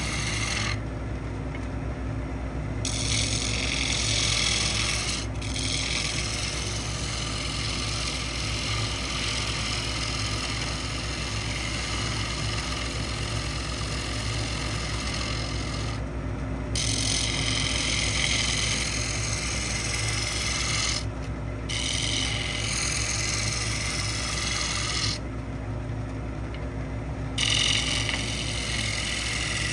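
Wood lathe running with a tool or abrasive pressed against the spinning pecan bowl, a steady motor hum under a scraping, rubbing noise. The scraping lifts off four times and comes back, leaving only the hum in between.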